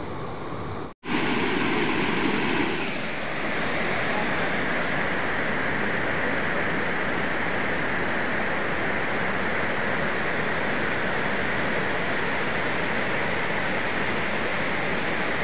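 Rain-swollen floodwater spilling over a low concrete weir and churning at its foot: a steady rushing, broken for an instant by a cut about a second in.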